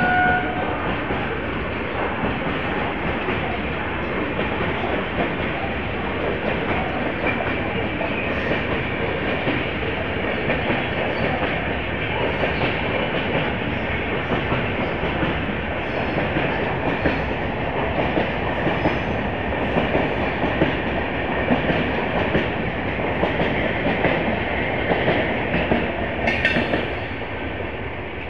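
Indian Railways express train running through the station at speed without stopping, its coaches passing close by in a steady, loud noise of wheels on rail. The sound drops away near the end as the last coaches pass.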